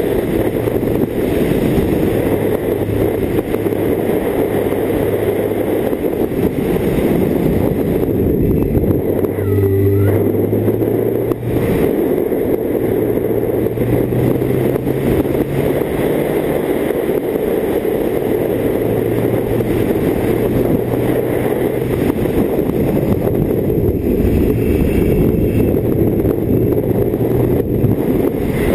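BMW K1600GT's inline six-cylinder engine running at road speed under rushing wind on the microphone, the wind noise the loudest part. The engine note shifts up and down with throttle and gear changes, most clearly about ten seconds in.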